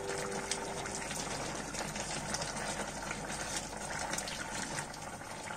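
Curry of chicken and mustard leaves simmering and bubbling steadily in a wok while a metal ladle stirs through it, with small faint ticks of the ladle.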